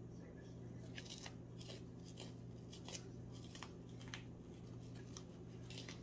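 Faint crinkling and clicking of flashy tinsel ribbon being handled and pressed to the hook at a fly-tying vise, a scatter of short crackles over a steady low hum.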